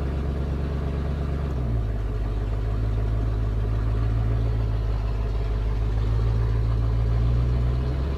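Ford F250's rebuilt, carbureted 351 Windsor V8 running low and steady in drive as the truck begins to roll, heard from the cab. Its note drops a little about two seconds in and comes back up near the end.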